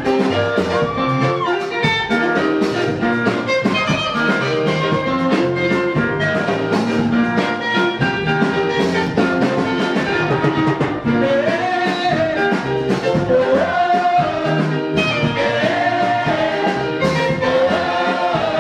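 Live church gospel music: a choir and lead voice singing over band accompaniment with a steady beat.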